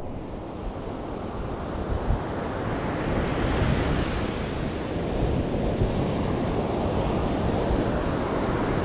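Surf washing up the beach, with wind buffeting the microphone; a steady noise with no distinct events.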